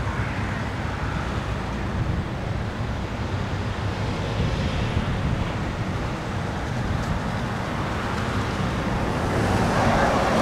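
Steady road traffic, cars and trucks driving past. One vehicle gets louder near the end as it approaches.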